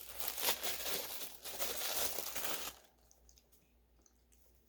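Packaging crinkling and rustling as an item is unwrapped by hand, stopping a little under three seconds in; a few faint light clicks follow.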